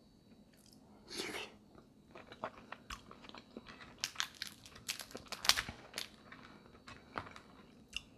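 Snow crab leg shells being cracked and snapped open by hand close to the microphone: a short noisy burst about a second in, then a run of sharp cracks and clicks, the loudest about five and a half seconds in. The shells are not opening cleanly.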